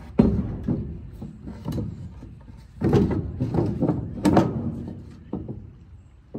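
Lumber being handled on a wooden truck-bed deck: an irregular run of wooden knocks and thuds as boards are picked up, shifted and set down. The loudest come just after the start and in a cluster about three to four seconds in.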